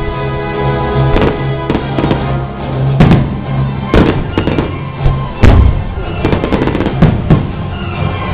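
Fireworks going off in a string of sharp bangs, about one a second, over loud music with a steady beat.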